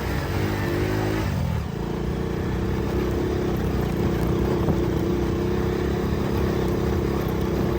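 Small Hero motorcycle's engine running under way. Its pitch wavers for about the first second and a half, then holds steady.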